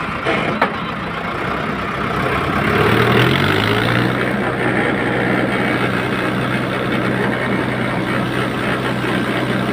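Tractor diesel engine idling, then revving up about three seconds in and holding a steady higher speed.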